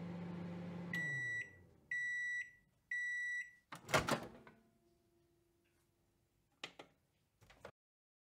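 Microwave oven finishing its cycle: the running hum stops, three high beeps about a second apart sound as the timer reaches zero, then the door opens with a loud clunk. Two short clicks follow near the end.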